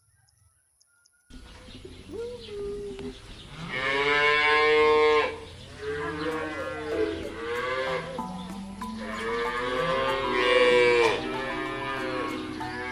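Cattle mooing: a series of drawn-out calls beginning abruptly about a second in, with two long loud moos, one about four seconds in and one about ten seconds in.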